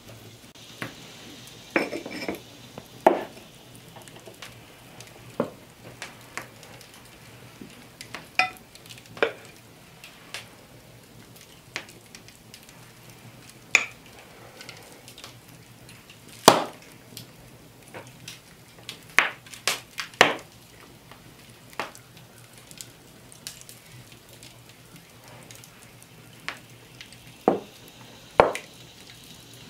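Scattered knocks, taps and clinks of cooking work: cauliflower florets broken apart by hand and handled in an iron frying pan, with cookware knocking now and then at irregular moments.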